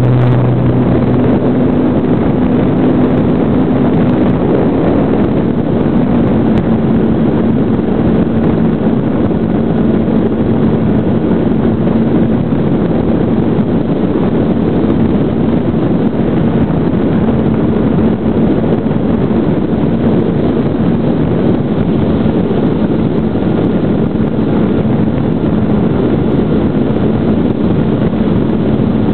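Brushless electric motor and propeller of a GWS Slow Stick RC plane running steadily, heard up close from the airframe as a loud, even hum under heavy wind rush on the microphone.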